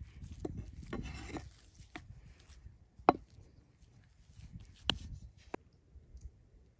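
Large cleaver scraping and pressing minced pork on a wooden cutting board, with a few sharp knocks of the blade against the board, the loudest about three seconds in.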